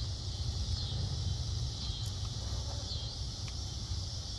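Steady high-pitched chirring of insects over a constant low rumble, with a few faint clicks.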